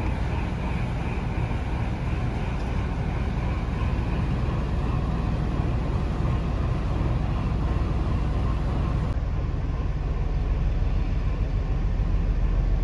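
Train running with a steady low rumble.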